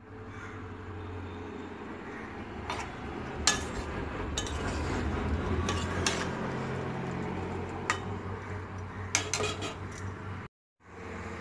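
A metal spatula stirring curry in a metal kadai: irregular clinks and scrapes of metal on metal, about a dozen sharp taps, over a steady low hum.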